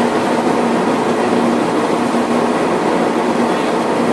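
A factory trawler's deck machinery running with a loud, steady drone and a constant low hum, while a cod end full of fish is worked aboard.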